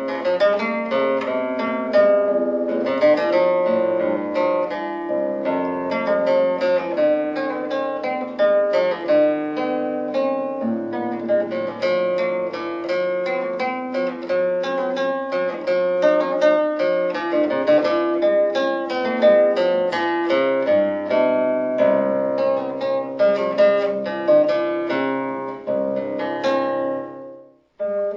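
Background instrumental music of plucked strings, a quick stream of picked notes over held tones. It cuts out briefly near the end and starts again.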